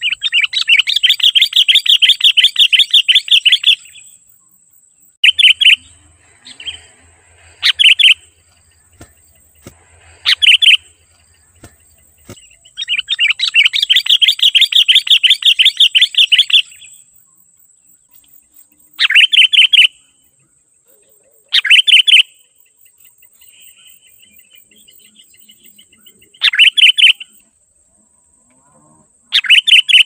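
Sooty-headed bulbul (kutilang) calling in two long runs of rapid repeated notes, about four seconds each, at the start and about halfway, with short one-second bursts of the same notes every few seconds between them.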